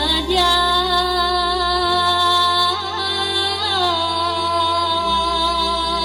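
A woman singing a Bulgarian folk song into a microphone, amplified, holding long ornamented notes over a band accompaniment whose low bass note changes twice.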